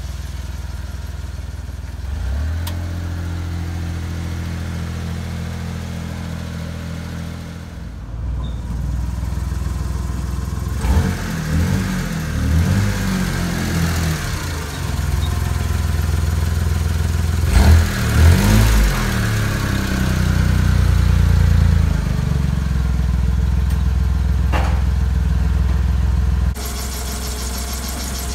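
1992 Mitsubishi Minicab kei truck's small three-cylinder engine idling steadily. It gets louder about a third of the way in, with some uneven rumble through the middle, and drops back shortly before the end.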